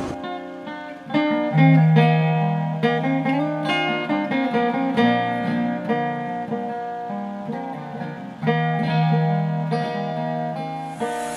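Background music: a solo acoustic folk guitar improvisation, single plucked notes over held bass notes.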